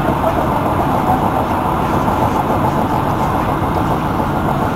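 Steady road and engine noise inside a moving car's cabin, an even rumble with no breaks.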